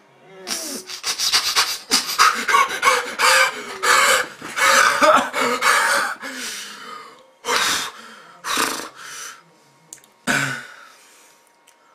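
A young man's exaggerated mock sex noise: about six seconds of rapid panting and moaning, then three separate loud gasps.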